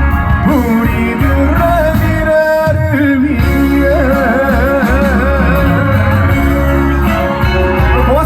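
Live band accompaniment of a trot song, with a lead melody line held in long notes with wide vibrato over steady bass.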